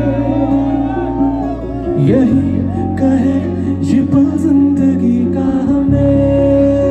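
Live band music played loud through a PA system: a singer's voice over keyboards and a heavy bass line. The bass drops out about two seconds in and comes back near the end.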